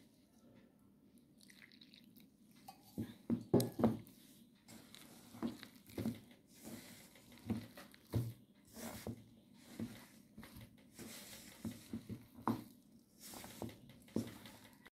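A hand kneading crumbly flour-and-water dough in a steel bowl: irregular soft squishing and thudding presses with some crunching rustle, about one or two a second, busiest about three to four seconds in.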